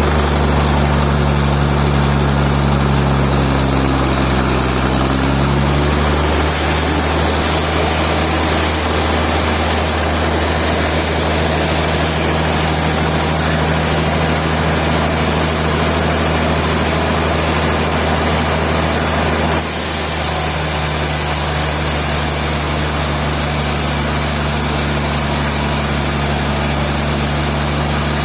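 Sawmill machinery running steadily, a heavy motor or engine with a constant low hum. About twenty seconds in, a high hiss comes in and stays.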